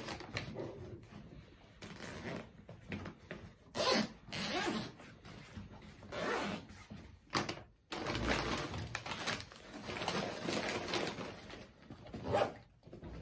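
Rustling and shuffling of fabric and plastic as a plastic-wrapped ration pack is pushed into a tactical backpack and the contents are rearranged, in irregular bursts.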